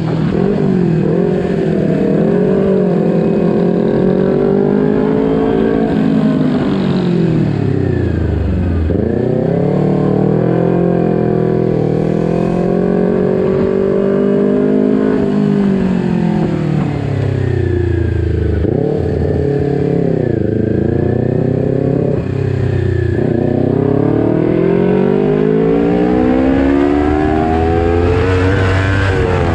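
Kawasaki Ninja 250 Fi's parallel-twin engine under way, revving up and dropping back again and again as the rider works the throttle and gears. The pitch climbs smoothly, then falls sharply several times, around a third of the way in and a few more times after the middle.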